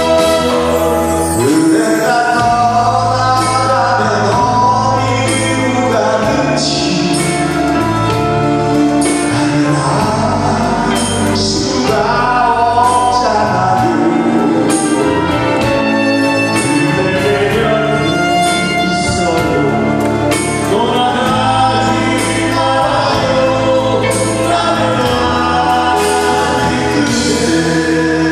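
Two male singers, a classical opera singer and a rock singer, singing a duet together over a live band of drum kit, keyboard and horns.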